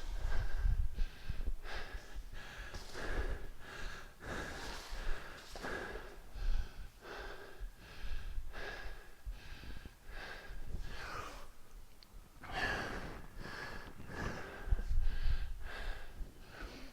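A man breathing hard and fast while exercising, quick forceful breaths in and out, more than one a second.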